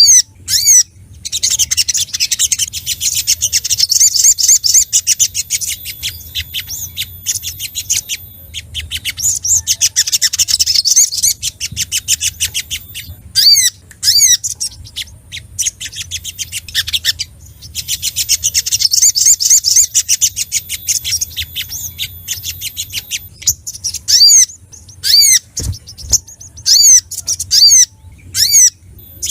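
Little spiderhunter (sogok ontong) calling loudly: strings of sharp, separate 'chit' notes that break three times into long, fast chattering trills. It is an agitated male's call to a rival. A single low thump comes near the end.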